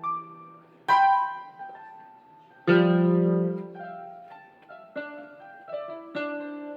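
Electronic keyboard being tried out: a few chords and single notes, each struck and left to ring and fade, with the loudest chord about three seconds in.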